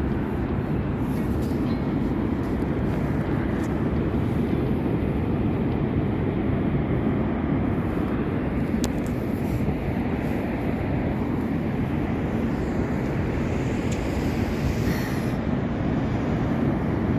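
Niagara Falls' water pouring down in a steady, heavy rush: a deep, even noise with no break.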